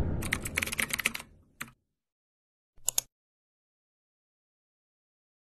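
Typing sound effect, a rapid run of keyboard clicks for just over a second, followed by single sharp clicks about a second and a half and three seconds in.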